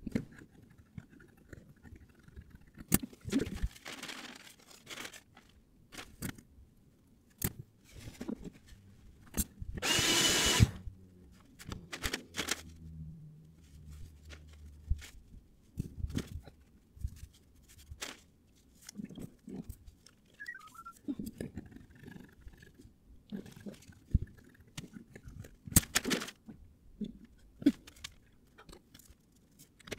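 Scattered clicks, knocks and rustling from hands handling tools and materials, with a short loud hiss about ten seconds in.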